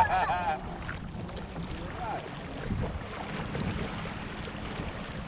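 Water rushing along the hulls of a Weta trimaran under sail, with wind buffeting the microphone. A child's high-pitched voice sounds briefly at the start.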